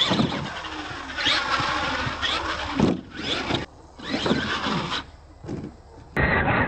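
Radio-controlled monster truck driving in bursts of throttle: its electric drive whines, rising and falling in pitch with each blip, with tyre and drivetrain noise on dirt. Near the end comes a louder, rougher burst.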